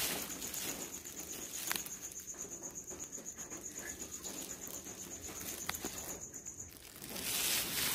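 An insect trilling: a steady, high-pitched, evenly pulsing trill that stops near the end, with two faint clicks along the way.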